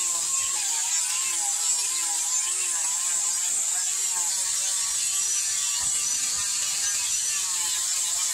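Electric angle grinder with a sanding disc smoothing a wooden hoe handle: a steady motor whine whose pitch wavers up and down as the disc is pressed and drawn along the wood, over a high sanding hiss.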